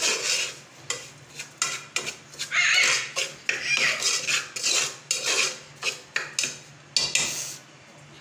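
Steel spoon scraping and stirring semolina and gram flour roasting in ghee in an aluminium pot, with repeated scraping strokes about twice a second that stop about seven seconds in.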